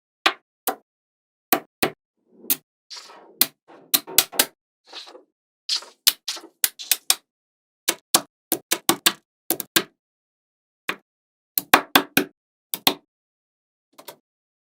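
Small magnetic balls snapping together, a string of sharp, irregular clicks, often several in quick succession. Between the clicks come short rattling scrapes of balls rolling and sliding against each other.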